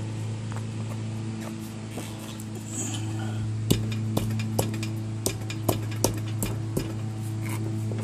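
A run of about eight sharp metal clicks and taps, irregularly spaced, starting about halfway through, as a lawn tractor's rear wheel is fitted and secured on its axle hub. A steady low hum runs underneath.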